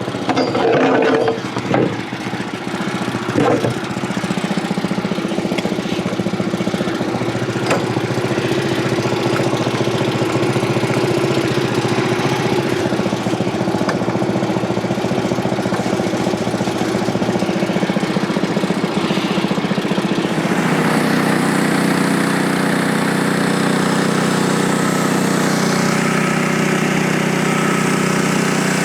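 Frontier OS23 portable band sawmill's engine running steadily, with a few sharp knocks in the first few seconds. About two-thirds of the way through its tone shifts and a hiss joins it.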